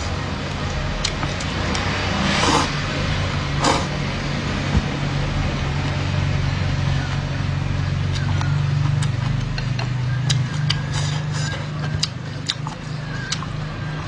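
Eating noodles: two short slurps a few seconds in, then scattered small clicks and chewing, over a steady low hum.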